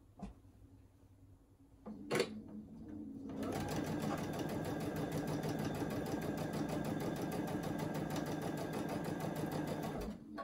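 Baby Lock Altair computerized sewing machine running a narrow top stitch along a fabric edge: a click about two seconds in, then steady rapid stitching from about three seconds in that stops abruptly just before the end.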